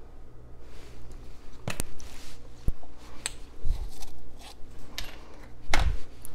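Spice jars and a measuring spoon being handled on a kitchen countertop: a scatter of small clicks and knocks, with two dull thuds as jars are set down.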